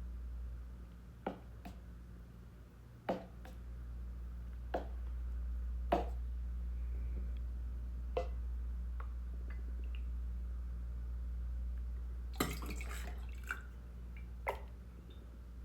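Light clinks and taps of a utensil against glass jars as yogurt is dished out, spaced a second or two apart, with a brief scuffling clatter near the end, over a steady low hum.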